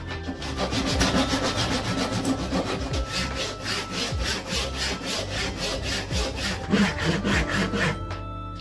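Fine-toothed hand saw cutting through small wooden strips in quick, even back-and-forth strokes. The sawing stops a little before the end.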